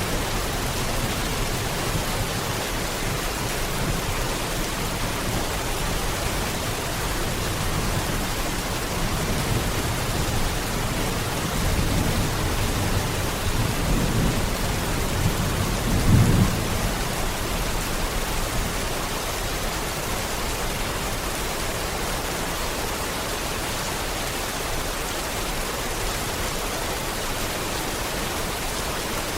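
Steady heavy rain hissing throughout, with a low rumble of thunder swelling from about twelve seconds in and peaking around sixteen seconds.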